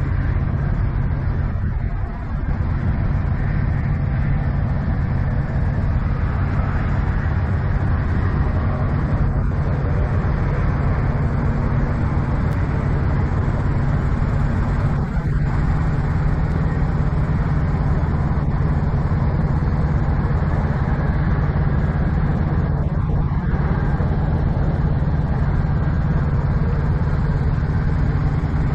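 Kenworth semi tractor's diesel engine idling, a steady low drone that holds even throughout.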